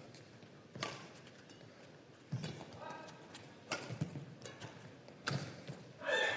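Badminton rally: rackets striking the shuttlecock about every one and a half seconds, with pitched squeaks of court shoes between the strikes and a louder squeak near the end.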